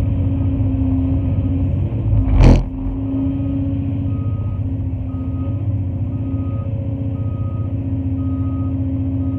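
Cat 349 excavator's diesel engine running steadily, heard from the cab, with a truck's backup alarm beeping a little faster than once a second. One loud thump comes about two and a half seconds in.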